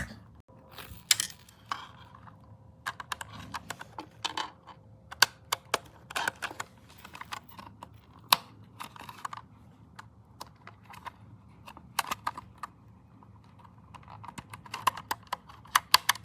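Fast, irregular clicking of buttons being pressed, in short clusters with pauses between.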